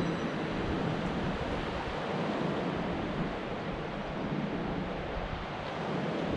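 Steady rushing of wind on the microphone mixed with ocean surf, with a low hum underneath.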